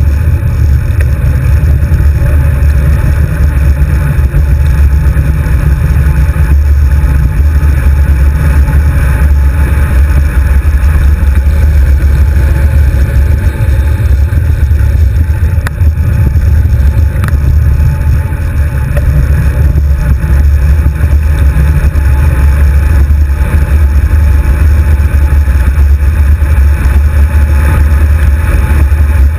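Wind buffeting the microphone of a handlebar-mounted GoPro HD2 on a moving road bicycle: a loud, steady, deep rumble.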